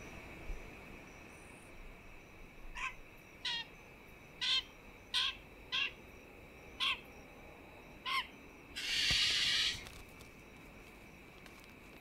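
Pied currawong giving seven short, sharp call notes spaced about a second apart, over a faint steady insect drone. A brief hissing burst follows about nine seconds in.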